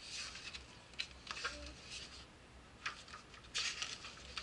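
Pages of a thin picture book being turned by hand: several short papery rustles and flips, with a few light clicks of paper on the desk.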